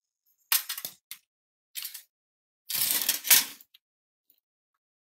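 Rattling and clattering of a car stereo's sheet-metal chassis and plastic faceplate being handled, in several short bursts, the longest and loudest about three seconds in.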